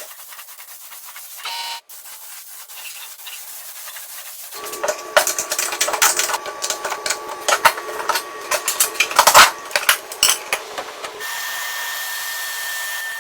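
Workshop restoration work on metal parts: faint scraping, then from about four and a half seconds in a rapid run of sharp clicks and knocks for several seconds, giving way near the end to a steady power-tool hum with a high tone.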